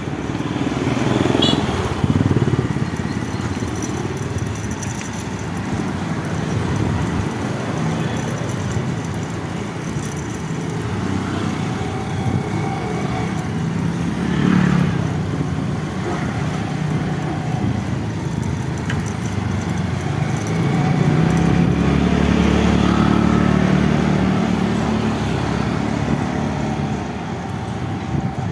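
Motor scooter engines running while riding along a paved road, with road noise throughout; the engine pitch rises and falls with the throttle, and it is loudest about three-quarters of the way through.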